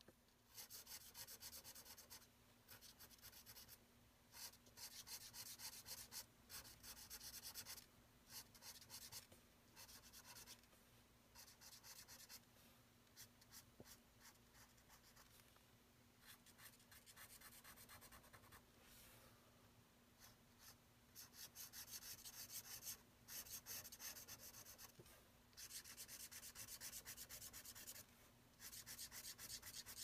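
Fine-tip marker pen scratching on paper in quick back-and-forth hatching strokes, coming in runs of a second or more with short pauses between, as an area is filled in with ink. Quiet and close.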